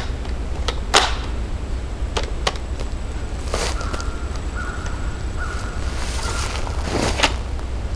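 A few sharp cracks with a short ringing tail, about a second in, midway and near the end, over a steady low rumble, with a faint high whistling tone in broken pieces in the middle.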